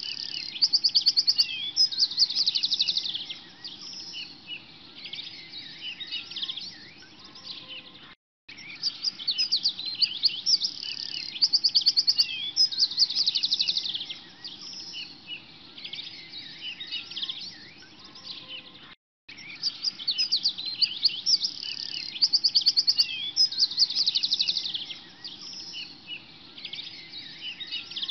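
Many small birds chirping and twittering, with a fast trill in each stretch. It is a looped recording: it cuts out briefly twice and the same stretch of birdsong starts over.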